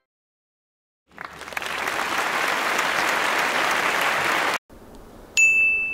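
Applause fading in about a second in, holding steady, then cutting off abruptly; shortly after, a single bright bell-like ding that rings on with a long, steady tone.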